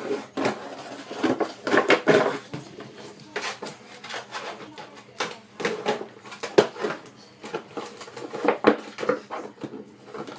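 Empty plastic milk jug crackling and knocking irregularly as a dog bites it and shoves it along the floor with its muzzle.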